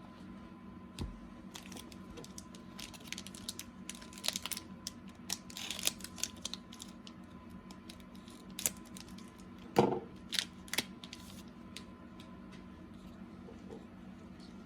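Cardboard trading cards being handled and slid against one another: a run of light clicks and swishes, with a few sharper flicks about ten seconds in.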